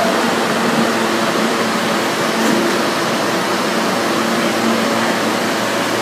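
R160 subway train standing at an underground platform, its air-conditioning and ventilation units giving a steady, loud rushing hum with a faint low drone.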